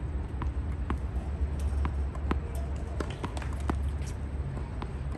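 Steady low rumble with scattered sharp knocks and taps, irregularly spaced.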